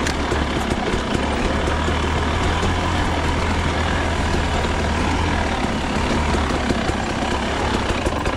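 KTM enduro dirt bike engine running steadily at low revs while the bike picks its way over a rocky trail, with a constant low drone and fine clatter and ticking from the rough ground.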